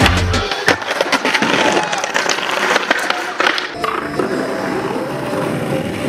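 Skateboard wheels rolling over stone paving, with several sharp clacks of the board popping and landing. Music stops about half a second in.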